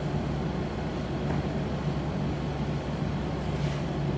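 Steady low electrical hum of the room's background noise, with faint brushing rubs of a duster wiping a whiteboard, about a second in and again near the end.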